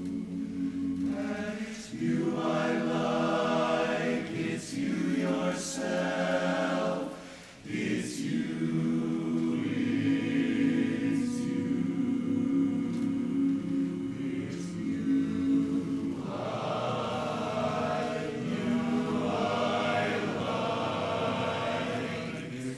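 Barbershop chorus singing a cappella in close harmony, holding sustained chords, with a brief break about seven and a half seconds in.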